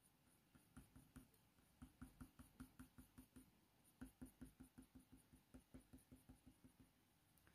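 Faint, quick strokes of a Faber-Castell Polychromos coloured pencil on hot-press watercolour paper: short flicking marks at about five a second, in runs with brief pauses.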